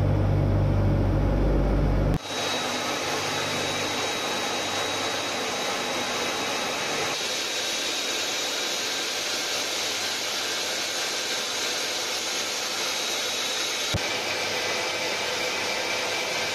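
Aircraft cabin noise in flight. At first the Tupolev Tu-95's turboprop engines give a loud, low steady drone in the cockpit. About two seconds in this cuts to a steady rushing hiss with a thin high whine, which lasts to the end.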